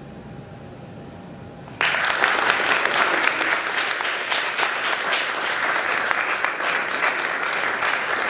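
Audience applause after a marimba solo, a dense clatter of many hands clapping that starts suddenly about two seconds in and keeps up steadily.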